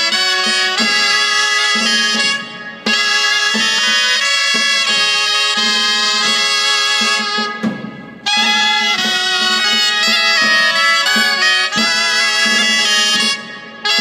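Dulzaina, the Spanish double-reed shawm, playing a melody note after note, broken by three short pauses.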